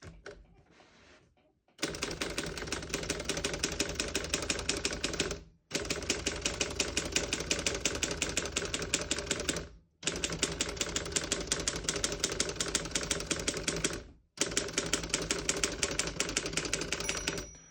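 1952 Underwood 11 manual typewriter being typed on: rapid, even key strikes in long runs with three brief breaks. Near the end the margin bell rings once, the sign that the carriage has reached the end of the margin.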